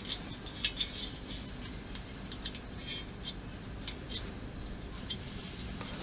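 Light, irregular clicks and taps of small model-kit parts being handled and tried in place in a model helicopter fuselage.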